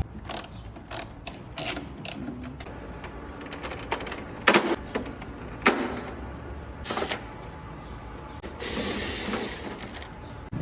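Irregular clicks and knocks of parts and tools being handled, as in taking apart an air purifier, with about a second of scraping noise near the end.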